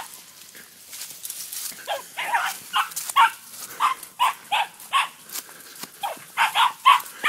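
West Highland terrier barking in a rapid string of short, high yaps, about three a second, starting about two seconds in, while it confronts a groundhog.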